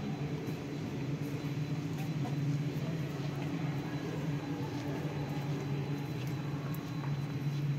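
Steady low hum of a large station concourse, likely ventilation and machinery, with faint scattered clicks and footsteps.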